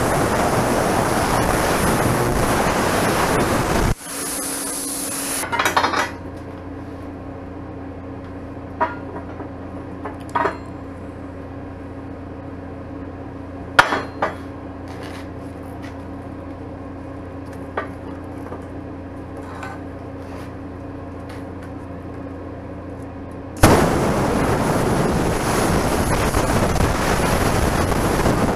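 Electric arc welding on steel: the arc crackles and hisses steadily, stops about four seconds in, and starts again near the end. In between, a low steady hum with a few scattered sharp metal taps and clinks.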